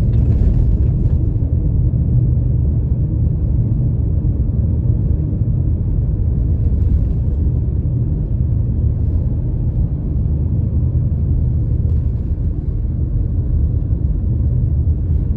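Steady low rumble of a car driving along a city road, engine and tyre noise heard from inside the cabin.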